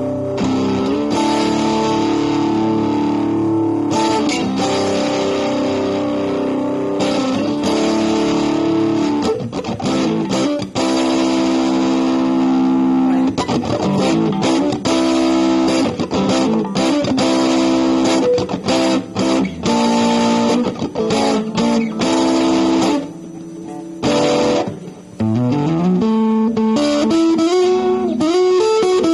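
Electric guitar played through a Fender Studio Drive amp. Held chords give way to quicker picked notes and strums, with a short quieter spell a little past two-thirds through, and then notes sliding upward near the end.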